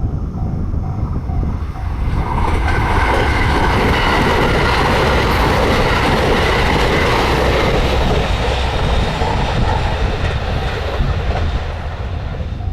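A train passing over a Japanese level crossing. The crossing's warning bell rings in steady pulses at first, then a loud rush of wheels on rail takes over about two seconds in and eases off near the end.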